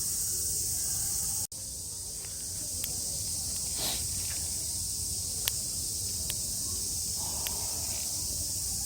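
Steady high-pitched chorus of summer insects, with a few sharp clicks scattered through it. The sound cuts out for an instant about a second and a half in.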